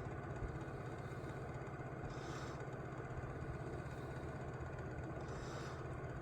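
A steady, low mechanical hum with an engine-like pulse, unchanging throughout.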